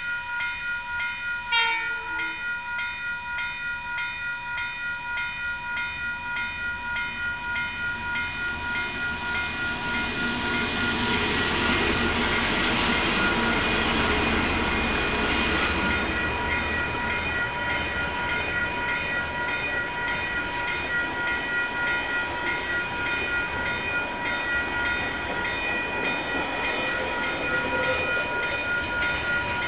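Level-crossing warning bell ringing rapidly and continuously while a freight train hauled by two KiwiRail DX-class diesel-electric locomotives passes. The diesels' rumble and the wheel noise swell to the loudest point as the locomotives go by, then give way to the steadier rolling of the wagons. There is one short sharp click near the start.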